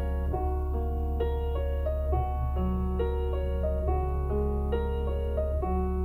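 Solo piano intro of a Mandarin pop song playing through a Porsche Panamera's Burmester car audio system: single notes and chords at an easy, steady pace. A steady low hum runs underneath.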